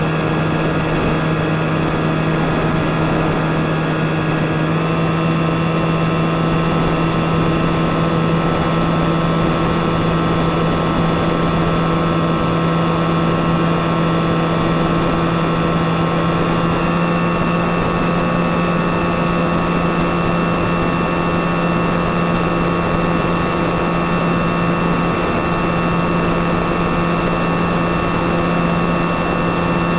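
Skywalker FPV plane's electric motor and propeller running at steady cruise, picked up by the onboard camera, with air-rush noise. The drone holds a constant pitch, with small shifts in its higher whine about 5 and 17 seconds in.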